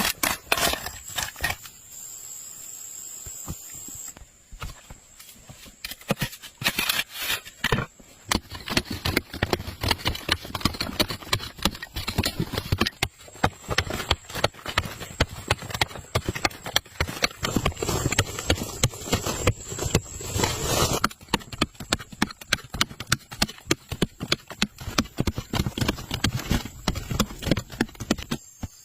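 A rapid, irregular series of knocks and scrapes, several a second, from manual work. A thin, high, steady whine sounds in the background for stretches.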